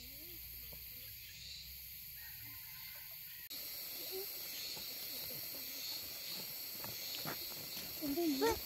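Forest ambience with a steady, high insect buzz. After a cut about three and a half seconds in come scattered footsteps on the path and a few short wavering calls, the loudest near the end.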